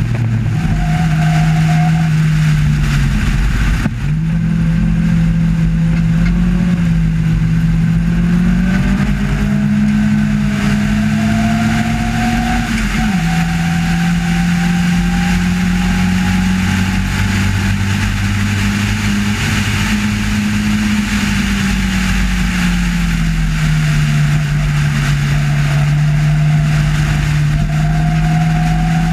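Sports-racing car's engine running hard at racing speed. Its pitch climbs for several seconds and drops sharply at a gearchange about 13 seconds in, with a brief cut about 4 seconds in; it sinks again later and rises once more near the end.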